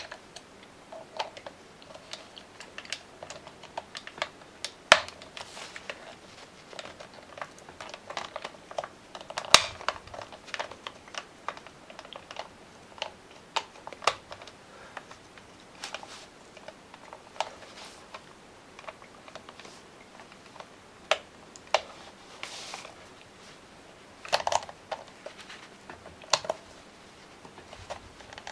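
Irregular small plastic clicks and taps as a screwdriver prises at the glued-on top jaw of a 1992 Playskool Teddy Ruxpin's plastic head, with two sharper cracks about five and nine and a half seconds in.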